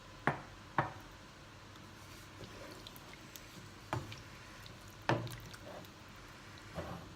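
Five short knocks and clinks of kitchenware against a stock pot, two close together at the start, then three spread out over the rest.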